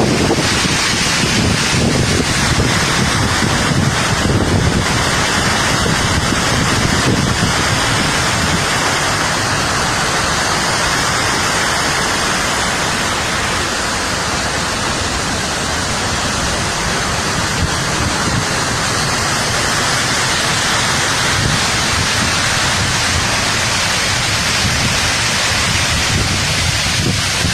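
Waterfall's loud, steady rush of falling water.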